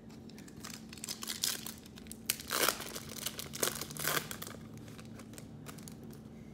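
Trading-card pack wrapper being crinkled and torn open: a run of irregular crackles for about four seconds, then it settles.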